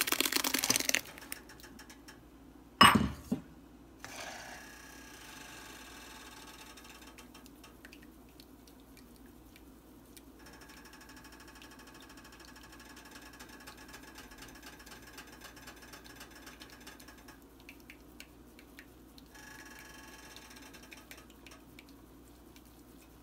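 Blended corn pulp poured into a wire-mesh strainer, followed about three seconds in by a single sharp knock. Then faint scraping and rustling as the pulp is worked in the metal mesh, over a low steady hum.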